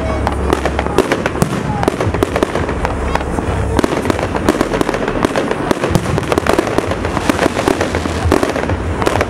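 Fireworks display: a dense, unbroken run of bangs and crackles as aerial shells and rising comets burst.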